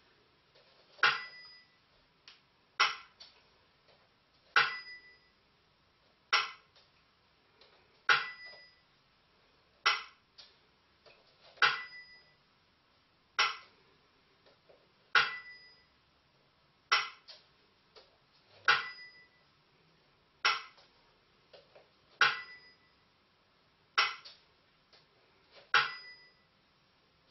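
Burmese si and wa (small bell-cymbals and bamboo clapper) keeping a slow dance beat, one stroke about every 1.75 seconds, si and wa in turn. Each si stroke rings briefly and the wa stroke is a dry click.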